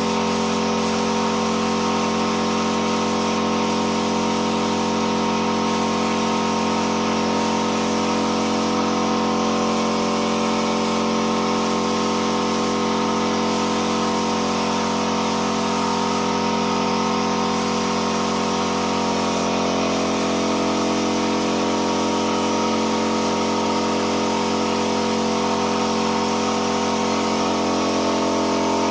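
Spray gun spraying clear PU polish, a steady hiss over a constant machine hum that runs on without a break.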